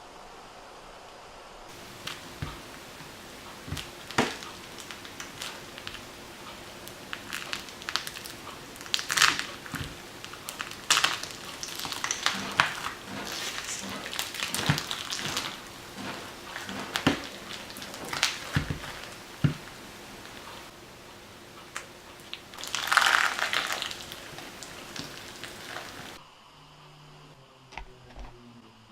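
Slime being squeezed and poked by hand, giving irregular crackling clicks and pops, with a denser crunchy stretch about two-thirds of the way through.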